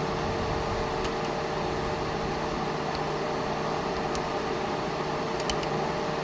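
Steady background hum and hiss with a constant tone, with a few faint scattered metal ticks of lock picks working the pins of a pin-tumbler lock.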